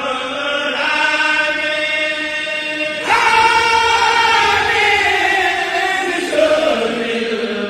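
A group of voices chanting an Arabic devotional qasida (xassida) together in long drawn-out notes, with a new verse beginning about three seconds in.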